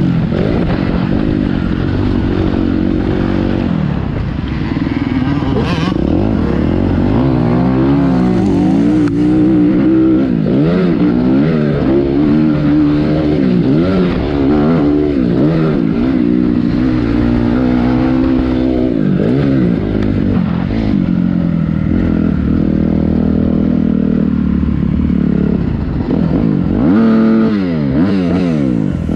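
Motocross dirt bike engine revving hard, its pitch rising and falling over and over as it accelerates and shifts. A last steep rise comes near the end.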